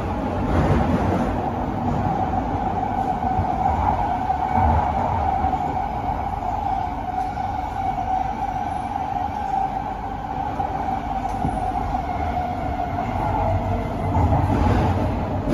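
Kawasaki & CSR Sifang C151A metro train running through a tunnel, heard from inside the passenger car: a continuous rumble of wheels on track with a steady whine held throughout.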